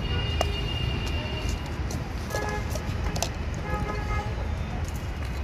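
Road traffic running with car horns honking: a long high horn tone over the first second and a half, then two shorter honks about two and a half and four seconds in.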